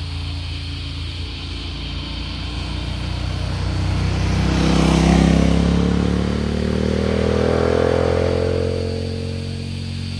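A motorcycle approaching and passing close by, loudest about halfway through, its engine pitch rising steadily as it accelerates away.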